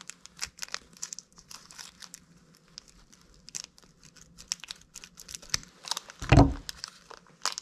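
Close-up handling noise: crinkling and rustling of plastic packaging and the clicks of a wire stripper being handled, with a louder thump about six seconds in.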